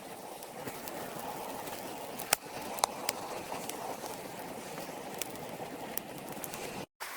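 Outdoor ambience: a steady low rushing noise with a few scattered sharp clicks, cutting off abruptly near the end.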